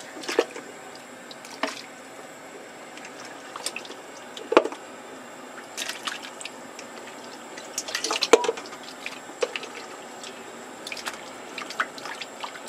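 Water dripping and sloshing, with scattered sharp clinks and knocks of cured pork ribs and cookware being handled as the salty ribs are readied for blanching.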